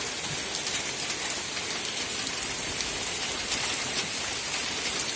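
Heavy rain falling steadily on wooden beehives with wet lids and on the ground around them: a constant hiss with many small drop ticks.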